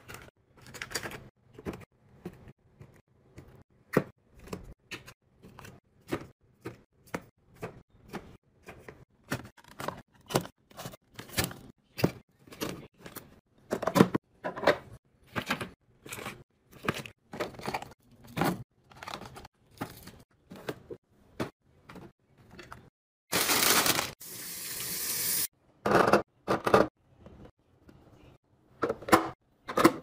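Items being handled and set down during restocking and organizing: a quick, uneven run of taps, clicks and knocks, and a hiss about two seconds long a little over twenty seconds in.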